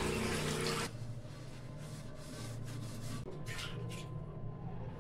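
Tap water running into a blackened karahi at the sink, shut off about a second in. After that the wet pan is handled over the sink with a few faint, brief knocks.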